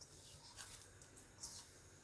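Near silence, with a few faint soft sounds of a hand pressing and kneading dough in a stainless steel bowl.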